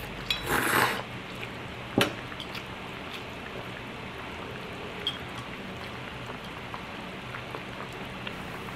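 Shabu shabu broth simmering in an electric hot pot: a steady, even bubbling hiss. A short louder rustle about half a second in and a sharp click about two seconds in.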